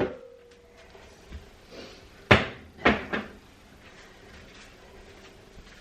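Kitchen cupboard doors and contents being handled: a sharp knock at the start with a short ring after it, then three more knocks a little over two seconds in, in quick succession.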